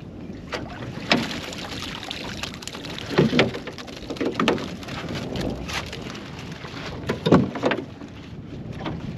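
A collapsible crab pot is hauled from the water and lifted into a small boat: water splashing and dripping off the mesh, with scattered knocks and clatter of the pot's frame against the boat. Wind buffets the microphone.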